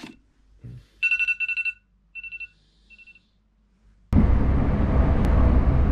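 Smartphone alarm beeping in quick groups of short two-pitch electronic beeps, growing fainter. About four seconds in, a sudden loud, noisy wash of sound cuts in.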